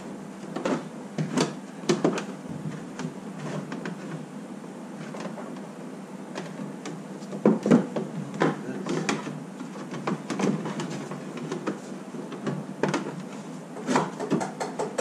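Plastic inner-fender mud shield being pushed, bent and fitted into a UTV's front wheel well: scattered knocks, scrapes and clicks of plastic against the body panels, with a louder knock a little past halfway and a quick run of clicks near the end.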